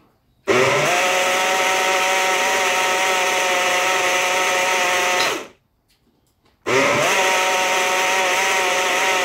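Personal blender with a stainless-steel base blending aloe vera with olive oil, run in two pulses of about five seconds each. The motor spins up quickly at the start of each pulse, then runs steadily, with a short break between the two.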